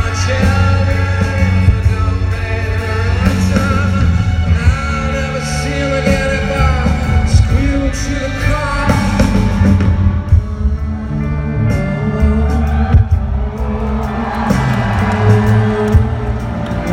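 Live rock band playing with a male lead vocal singing over heavy bass and drums, amplified through an arena sound system.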